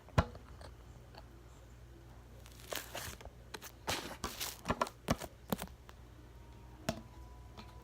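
Sticky slime being stretched and squeezed in the hands, giving a scatter of small clicks and crackles, busiest in the middle.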